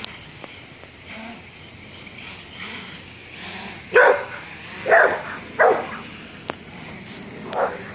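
American bulldog mix barking four times, loud and sharp, in the second half, at a Blade 350 QX quadcopter. The drone's motors and propellers give a steady high whine underneath.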